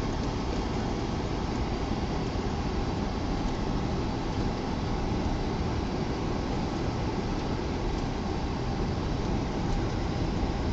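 Steady rumble and hiss of a car driving on a snowy road.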